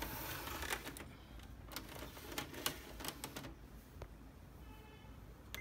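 Clicks and short mechanical rattles from an HP LaserJet Pro M127 multifunction printer that has just been switched on.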